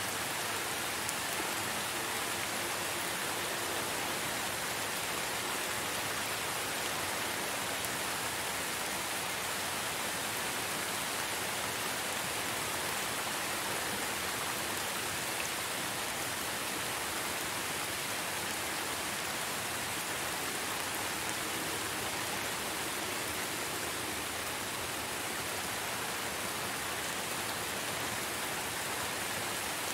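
Rain falling steadily, an even hiss with no single drops standing out.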